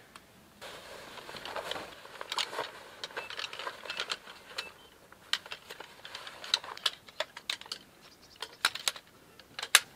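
Camp gear being handled: rustling at first, then a long irregular run of sharp clicks and taps as a folding tripod stand's legs and latches are opened, with the loudest clicks near the end.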